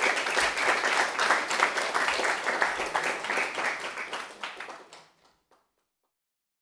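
Audience applauding at the end of a lecture, a dense patter of many hands clapping that fades out about five seconds in.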